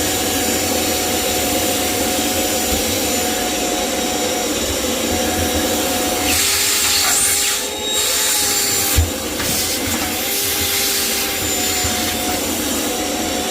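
Vacuum cleaner running with a crevice tool, sucking hair and gunk from a front-loading washer's rubber door seal and drain. Its sound shifts around the middle, with a brief knock about nine seconds in.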